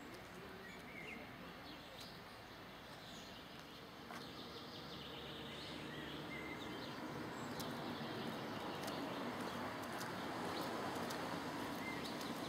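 Outdoor ambience: a few faint bird chirps over a steady noise that grows gradually louder through the second half, with a few light clicks.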